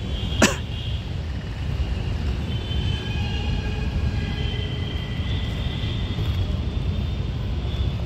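Outdoor background noise: a steady low rumble with faint high tones drifting over it, and one sharp click about half a second in.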